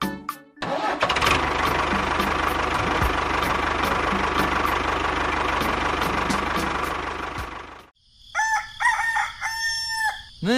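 A small machine running with a steady noise, a low hum and regular ticking for about seven seconds, stopping abruptly. Then a rooster crows.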